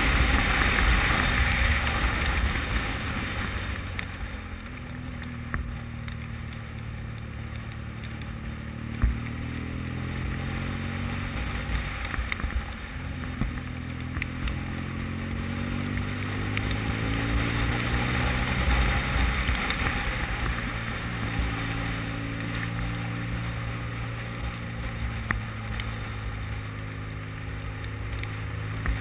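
Motorcycle engine heard from on board while riding, its pitch slowly rising and falling with the throttle through the bends, over a steady rush of wind and tyres on wet tarmac that is loudest in the first few seconds.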